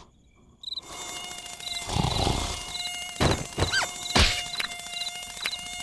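Cartoon mosquito's steady high whine as it flies about, over regularly repeating cricket chirps. A few sharp hits land around the middle, one followed by a short falling whistle.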